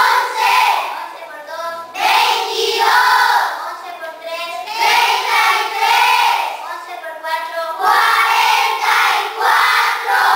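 A class of schoolchildren's voices in unison, reciting the multiplication tables in a sing-song chant of short repeated phrases.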